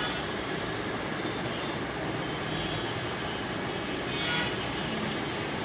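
Steady room background noise, an even hiss-like hum with no distinct events, and faint distant voices now and then.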